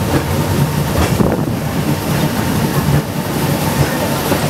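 Hong Kong Peak Tram funicular car running along its track: a steady rumble and rattle of wheels on rails.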